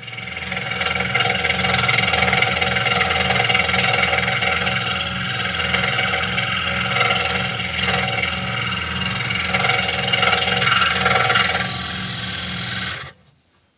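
Scroll saw running and cutting hardwood, its blade stroking rapidly and evenly. It stops abruptly near the end.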